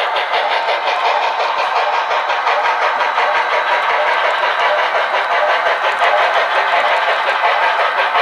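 Model train locomotive running, a steady rapid mechanical chatter with almost no low end.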